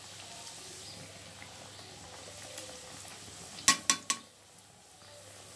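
Kachoris sizzling steadily as they deep-fry in hot oil in an iron kadai. About two-thirds of the way through, a metal utensil strikes the pan three times in quick succession, sharp ringing clinks that are the loudest sounds.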